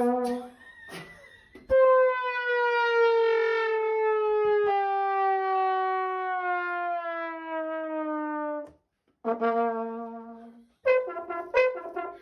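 Brass horn sound effect: a long note that slides slowly downward for about seven seconds and cuts off, then a short low note, then a quick run of short honking notes near the end.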